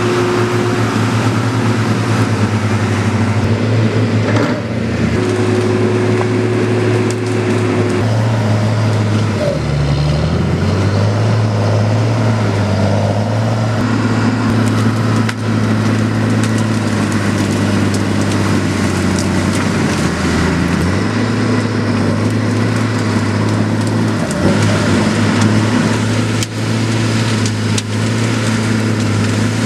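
Tigercat forestry machine's diesel engine running steadily under load, its pitch dipping and recovering several times, with scattered cracks and snaps of wood.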